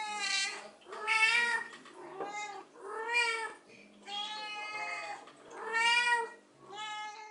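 Two Russian Blue cats meowing back and forth in about seven drawn-out calls, each rising and then falling in pitch. One call in the middle is longer than the rest.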